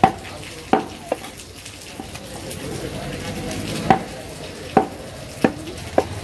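Butcher's knife knocking against a round wooden chopping block as beef is cut into small pieces: seven sharp knocks at uneven intervals, with a gap of about two and a half seconds in the middle.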